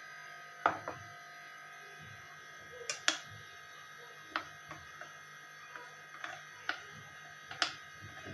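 A metal utensil clinking irregularly against a china bowl, a dozen or so sharp taps, while custard powder is stirred into milk. A steady faint hum runs underneath.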